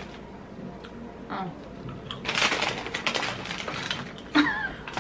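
Crunching as a nacho cheese tortilla chip is bitten and chewed, with a dense run of crackles about two seconds in, and a short voice-like sound near the end.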